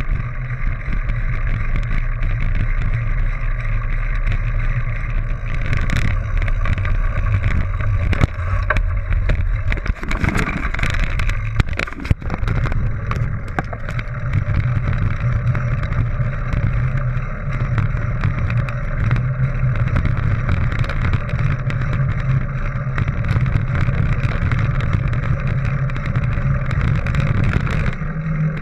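Mountain bike riding over a dirt trail: a steady rush of wind on the action camera's microphone and a rumble from the tyres. Clattering knocks from bumps come about six seconds in and again around ten to twelve seconds in.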